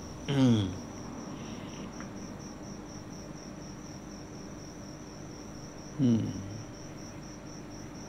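Crickets chirping steadily in the background, a high pulsing trill that never stops. A man's voice makes two brief falling sounds, about half a second in and again about six seconds in.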